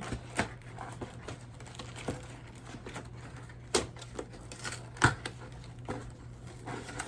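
Ring light and phone stand being unpacked and handled: irregular clicks and knocks of plastic parts and packaging, a few sharper ones, over a steady low hum.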